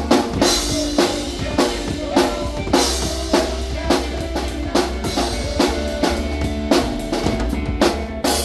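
Live rock band playing, with the drum kit's kick and snare beating a steady rhythm over bass and guitar chords.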